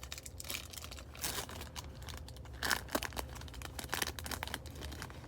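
Foil wrapper of a baseball card pack being torn open and crinkled by hand, in a string of irregular crackles.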